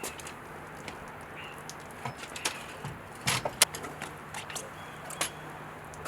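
Irregular light clicks and clatter, a handful of sharp ticks spread through, the loudest a quick cluster about three and a half seconds in, over a faint steady low hum.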